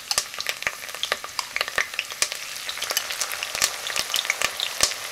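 Red onion paste and curry leaves frying in hot oil in an enamelled cast-iron pot, stirred with a metal spoon: a steady sizzle with many sharp ticks.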